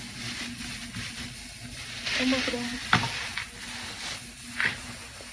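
Objects being handled and moved around while someone searches: rustling and shuffling, with a sharp click about three seconds in. A steady low hum runs underneath.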